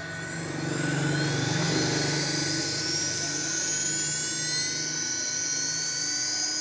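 1.5 kW GDZ CNC router spindle, freshly rewound and fitted with four new bearings, spinning up on a variable-frequency drive: a whine that climbs steadily in pitch as it accelerates, with a low hum that fades out about two and a half seconds in.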